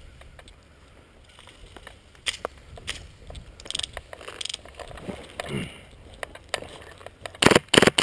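Scattered clicks and rustling of movement, then near the end a rapid full-auto burst from an airsoft rifle, many shots a second, the loudest sound.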